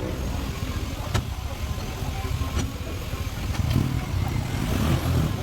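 A vehicle engine running with a steady low rumble, with a few sharp clicks over it.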